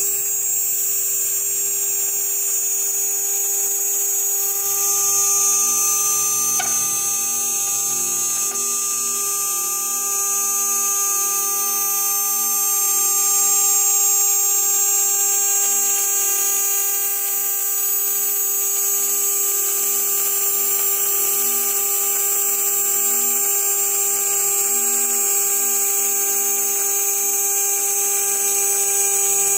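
CNC router spindle turning a 3 mm carbide endmill at about 12,000 RPM, milling half-inch polycarbonate: a steady whine with a strong high hiss from the cut.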